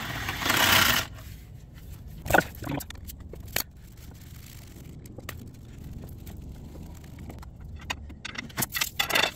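A DeWalt cordless impact gun runs in a short loud burst on a front suspension bolt. After that come scattered metallic clicks and clanks of tools and brake parts being handled, with a quick run of clicks near the end.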